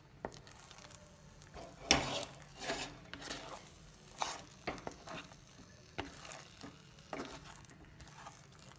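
A flat spatula scraping and stirring almond paste around a kadhai as the paste roasts in ghee on a low flame. The strokes come irregularly, the loudest about two seconds in.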